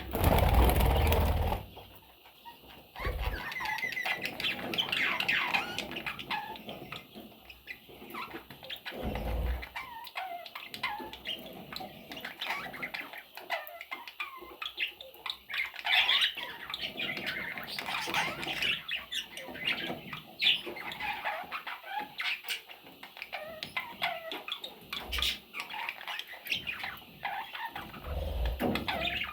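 A flock of budgerigars chirping and chattering continuously in many short, overlapping calls. A loud rustling burst comes in the first second and a half, and a few low thumps follow later.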